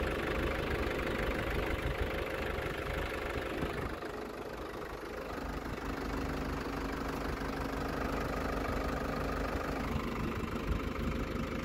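Tractor engine running steadily at low speed, its note shifting and dropping slightly about four seconds in.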